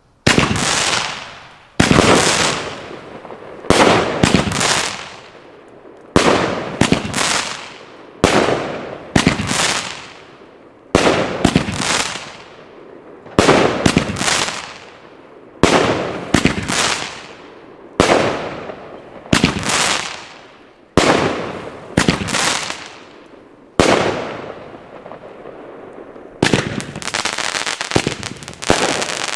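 Consumer fireworks battery firing loud shots about every two seconds, each a sharp bang followed by a long fading tail. Near the end it turns into a rapid, near-continuous string of shots.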